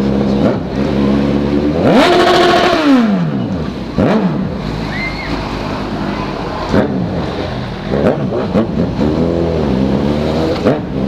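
Engine revved hard to make noise. It climbs sharply about two seconds in, holds briefly at the top against the rev limiter, then falls back. Several shorter blips follow, with a wavering rev near the end.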